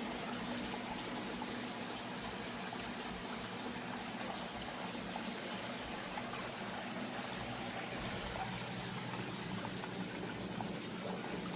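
Creek water running steadily with an even trickle, and a faint low hum underneath.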